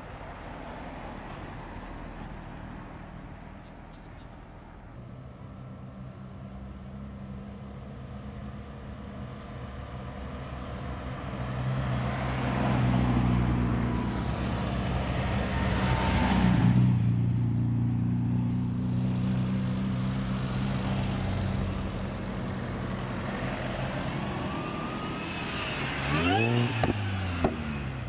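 Modern Mini hatchbacks driving slowly past one after another, their engines running at low revs and getting louder as each car nears. Near the end one car accelerates hard, its engine note rising sharply.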